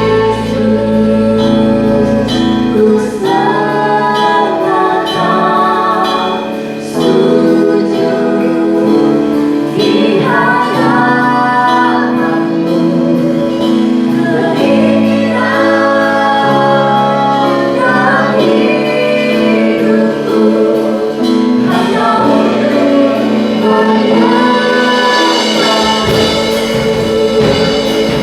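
Christian worship song: a group of singers sing phrases over held keyboard-like chords. The deep bass drops out a few seconds in and comes back near the end.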